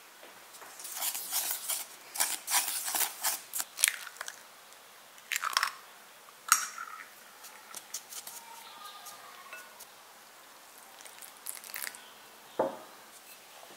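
Close-miked crackling and clicking of dough-making in a ceramic bowl: dry flour crunching as it is stirred with wooden chopsticks, with a few sharp taps against the bowl. Near the end comes a single falling plop as water is added to the flour.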